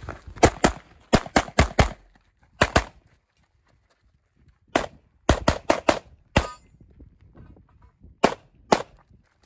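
CZ Shadow 2 9mm pistol fired rapidly in quick pairs and short strings of shots, about sixteen in all, with gaps of one to two seconds between groups as the shooter moves between positions.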